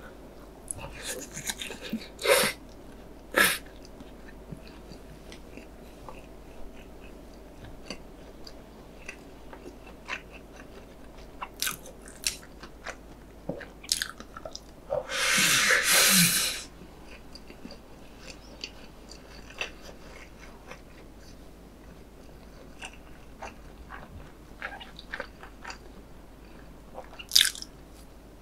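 Close-up eating of instant noodles: wet chewing with many small mouth clicks, and one long loud slurp of noodles a little past halfway.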